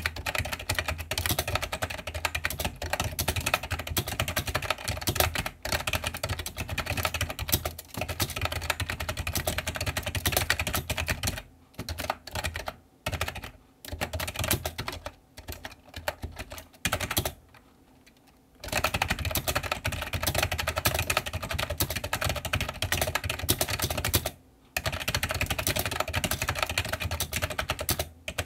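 Fast typing on an iMAGiC G Keyboard II Echo plunger keyboard: a dense run of key clacks. About halfway through it breaks into short bursts with a pause of about a second, then picks up again at full speed.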